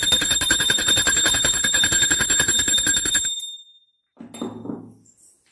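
Puja bell rung rapidly and continuously, its fast strikes blending into a steady ring that stops suddenly about three seconds in.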